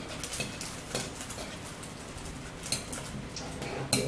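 Light, scattered clinks and taps of spoons against bowls of chili, with a few sharper ticks near the end.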